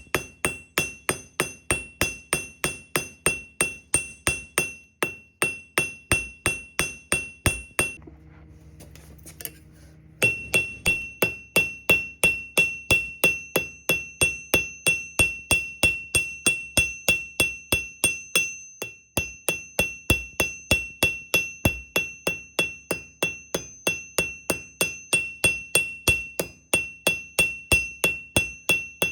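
Blacksmith's hammer striking hot steel on an anvil in a steady rhythm, about three or four blows a second, each blow ringing brightly. The hammering stops for about two seconds around eight seconds in, leaving a low hum, then resumes.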